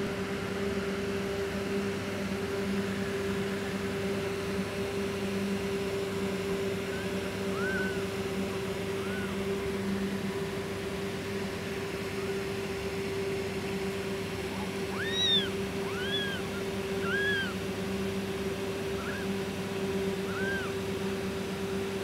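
Newborn kittens giving short, high, squeaky mews, about eight in all, most of them bunched together about two-thirds of the way through, over a steady low hum.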